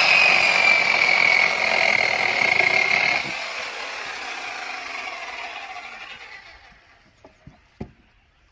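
IBELL EC16-18 electric chainsaw's motor running with a high whine, then released about three seconds in and winding down, fading over a few seconds to quiet. A few light clicks near the end.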